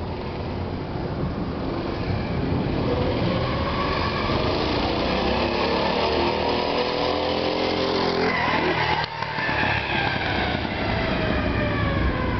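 Mini bike's Harbor Freight Predator 212cc single-cylinder four-stroke engine on a full-throttle pass, its pitch and volume climbing as it approaches. It goes by about nine seconds in, and the pitch then drops as it moves away.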